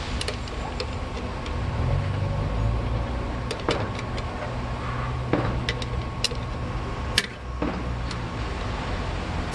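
Sharp metal clicks and taps, one every second or so, as a screwdriver works the slotted bearing adjuster ring of a truck differential during crown wheel and pinion setting. Under them is a steady low engine rumble from a running vehicle, which grows stronger about a second and a half in and fades near the end.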